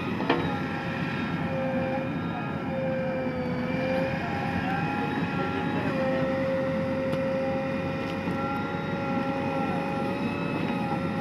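Heavy diesel machinery engine running steadily with a steady, slightly wavering whine over it, and one sharp click just after the start.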